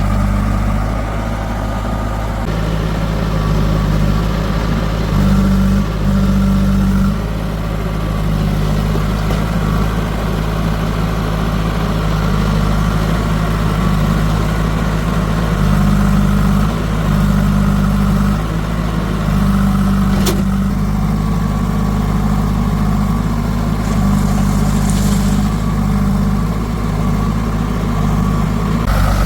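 Diesel engine of an earth-moving or tractor machine running steadily near idle, its note stepping up and down a few times as load comes and goes. A single sharp click about twenty seconds in.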